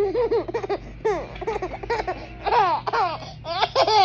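A baby about seven months old laughing in a few short bursts of giggles.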